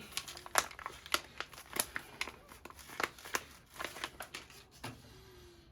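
Plastic packaging being handled, crinkling with irregular sharp clicks and crackles.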